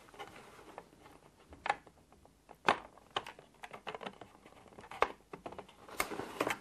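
Irregular light clicks and ticks of a thin plastic stonework liner being pressed and fed around the pegs of a model viaduct kit's plastic side walls.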